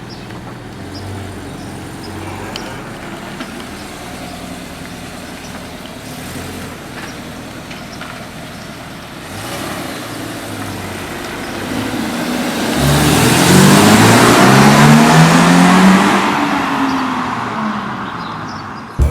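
A car running, then accelerating loudly about twelve seconds in, the engine pitch rising, before it eases off near the end.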